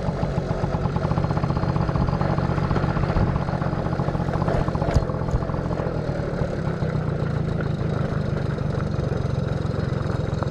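Small motorcycle engine running steadily with a rapid even putter while the bike is ridden, with one sharp click about five seconds in.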